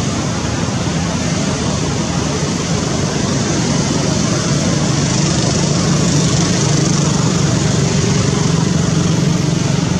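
Steady road traffic noise, with a vehicle engine's low hum growing slightly louder in the second half.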